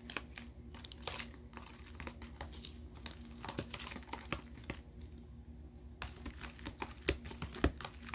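Metal spoon stirring a thick dish-soap mixture in a thin plastic container, with irregular scraping and clicking as it knocks against the container's sides and bottom.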